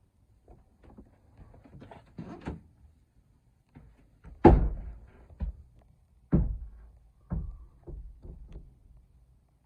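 A series of knocks and thuds, like things being handled or a door or hatch being shut. The loudest comes about four and a half seconds in, with two more strong ones about two and three seconds later.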